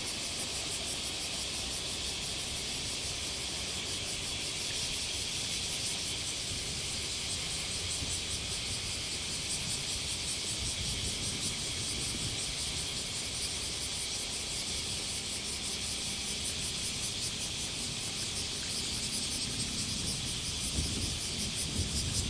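Cicadas shrilling in a steady, high-pitched pulsing chorus, over a low rumble from the diesel engines of a JR Shikoku 2000-series express railcar running at the station.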